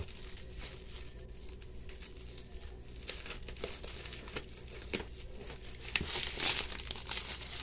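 Bubble wrap crinkling and rustling as it is cut with scissors and pulled off a boxed motorcycle cylinder block. Scattered small clicks throughout, and a louder burst of crinkling about six seconds in.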